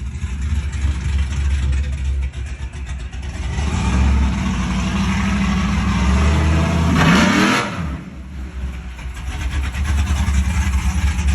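Loud V8 truck engine, a 5.3-litre high-output, running and being revved, with a sharp rev rising about seven seconds in; it sounds nasty.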